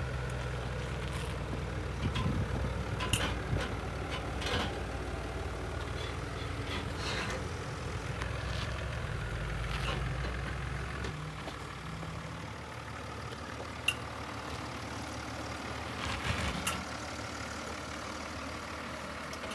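Mercedes-Benz G-Class engine idling as the vehicle crawls slowly over an articulation mound, a steady low rumble that eases off about two-thirds of the way through, with a few short clicks.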